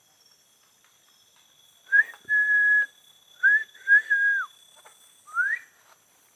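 A series of five clear whistled notes starting about two seconds in. Some notes rise quickly, one is held long and level, and one slides down at its end.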